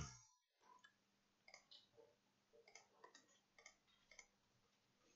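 Near silence with faint, scattered light clicks, about a dozen at irregular intervals, over a low steady hum.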